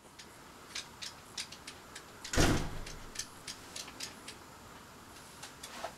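Light, sharp clicks at an uneven pace, a few a second, with one much louder thump about two and a half seconds in.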